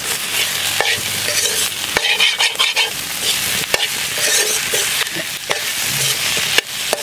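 Slotted steel spatula stirring and scraping potato masala in a black kadai, with the sizzle of frying under it and repeated sharp clinks of the spatula against the pan.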